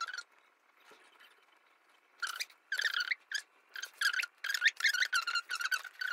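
A small animal squeaking: short high squeaks in quick irregular runs, starting about two seconds in after a quiet stretch.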